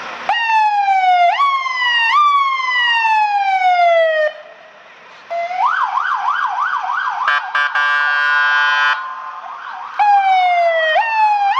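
Fire engine's electronic siren running through its tones: several loud sweeps that jump up and fall away, a slower falling tone, then a fast up-and-down yelp, a steady buzzing horn tone, and near the end the jump-and-fall sweeps again.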